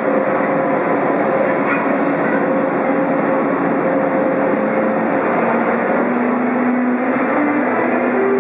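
Siemens ES64U2 Taurus electric locomotive with its cooling blowers running in a loud steady rush under a steady electrical whine from the traction converter. In the last couple of seconds the whine starts climbing in distinct steps, note by note: the Taurus converter beginning to draw power as the locomotive starts to move off.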